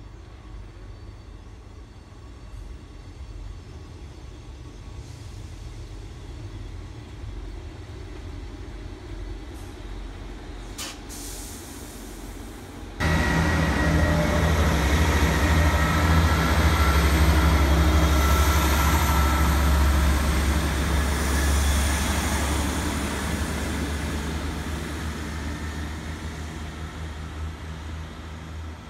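Class 158 diesel multiple unit's underfloor engines running under power as it passes close by and pulls away: a loud, steady low drone that begins abruptly about halfway in and fades as the train draws off. Before that, only a faint distant rumble.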